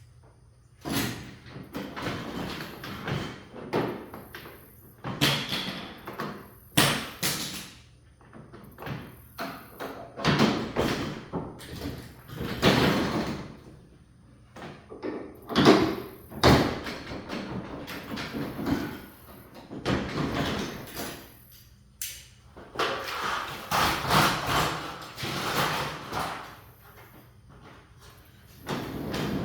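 A sectional garage door being worked on, rumbling and clattering in a string of bursts of a second or two each, with sharp knocks and short pauses between them.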